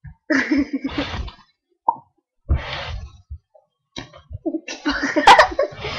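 Silly non-word noises made with the voice and mouth, in several short bursts with gaps between them.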